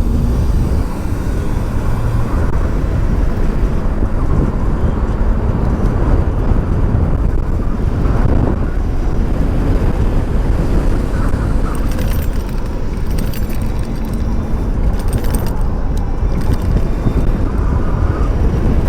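Wind buffeting a helmet-mounted microphone on a moving electric bike: a steady low rumbling rush, with road noise underneath.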